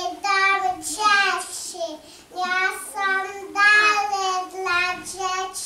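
A young child singing alone in short held notes, with no instrument heard.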